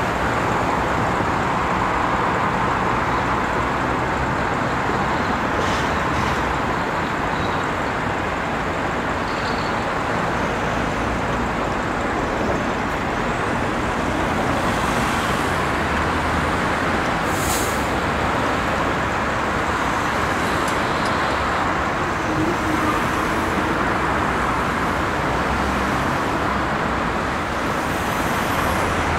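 Steady road traffic noise from cars and trucks on the adjacent road, with a brief high hiss about two-thirds of the way through.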